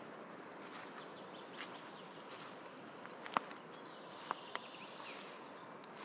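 Woodland ambience: a steady hiss of background noise with faint, scattered high bird chirps. Three sharp clicks or snaps stand out, the loudest about halfway through and two more close together about a second later.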